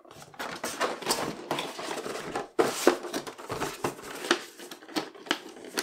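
Hands opening the flaps of a cardboard box and handling a plastic-bagged plastic miniature inside it: rustling with several sharp clicks and taps.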